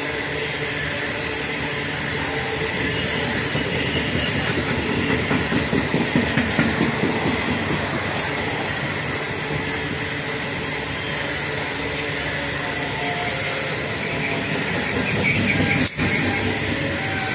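Loaded coal hopper wagons rolling past close by: a steady rumble with the clatter of steel wheels on the rails.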